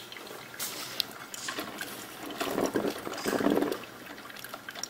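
Drip coffee maker brewing, water gurgling and sputtering as it passes through into the glass carafe, with a louder stretch of gurgling a little past halfway.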